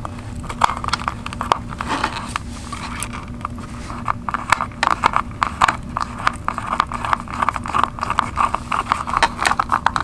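Rapid, irregular small clicks and taps, close up, growing denser about halfway through, over a faint steady hum.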